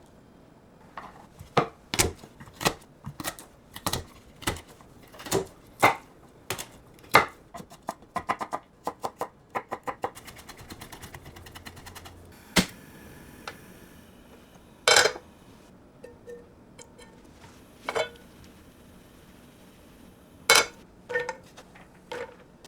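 Kitchen utensils knocking and clicking in cooking work: a run of sharp knocks about one and a half a second, then quicker light taps, then a few single louder knocks spaced a few seconds apart.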